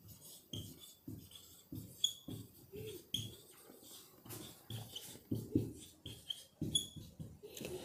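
Faint writing on a board: a quick series of short scratchy strokes, several with a brief high squeak.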